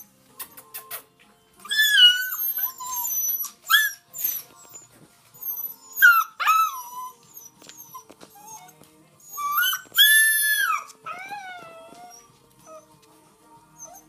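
Husky-type puppies howling and whining in high, wavering cries, several at once, loudest about two, six and ten seconds in, with short clicks between the cries.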